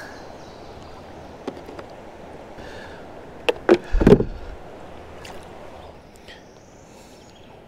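A few clicks and then a cluster of hollow knocks against an Ocean Kayak plastic sit-on-top kayak hull, loudest about four seconds in, over the steady sound of shallow stream water.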